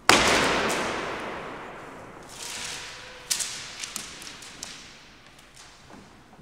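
A sudden loud crack-like hit that fades away over about two seconds. Then a rustle and a sharp click, followed by a scatter of light taps as a bundle of loose sheets of paper is flung into the air and lands on the stage floor.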